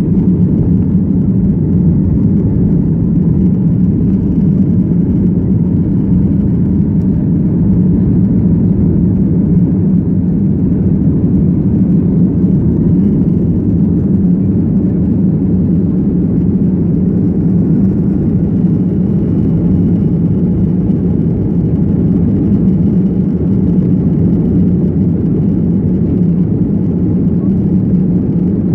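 Airliner cabin noise: a steady, low drone of engines and airflow heard from inside the passenger cabin.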